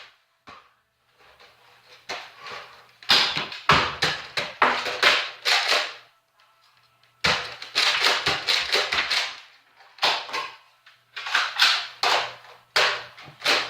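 Foam-dart toy blasters firing and darts smacking into things, in three long runs of rapid clacks and thuds with short quiet gaps between them.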